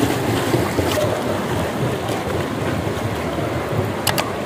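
Steady rush of splashing water from swimmers doing lengths, mixed with wind buffeting the microphone; a brief click about four seconds in.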